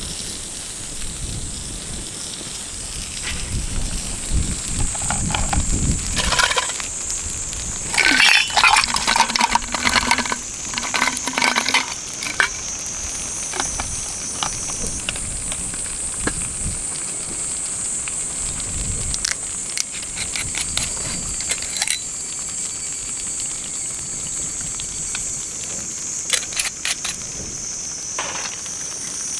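Scattered clicks and metallic clinks, thickest between about 6 and 12 seconds in, over low wind rumble and a steady high-pitched drone.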